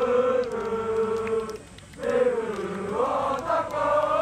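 A large group of voices chanting in unison in the stands of a soccer match, holding long notes that dip and rise in pitch, with a short pause near the middle.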